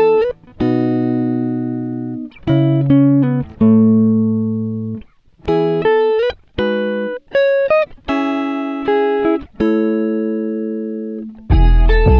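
Background music: slow chords on a plucked guitar-like instrument, each struck and left to ring out and fade, with short pauses between them. Near the end, a fuller section with deep bass comes in.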